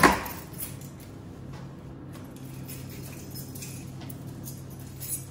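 A sharp knock at the start as a wooden cargo drawer in the back of an SUV is pushed shut, then faint clinks of gear and a tool being handled over a steady low hum.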